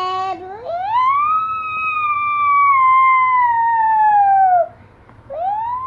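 A child imitating a fire-truck siren with his voice. A last hi-lo warble gives way to a long wail that rises and then slowly falls, followed near the end by a second, shorter rising wail.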